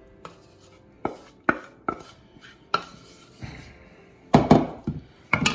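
Irregular knocks and clacks of a utensil and baking pan on the counter as buttery shortbread dough is pressed into a parchment-lined pan, with a louder run of knocks about four and a half seconds in.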